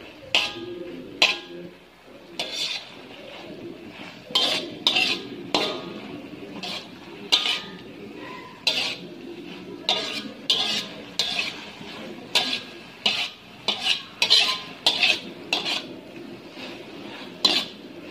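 Slotted metal spatula scraping and clanking against a metal wok as baby kailan is stir-fried, with a light sizzle underneath. The strikes come irregularly, about every half second to a second.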